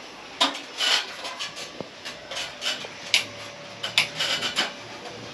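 Irregular short rustling and scraping noises, about a dozen, with a few sharp clicks among them.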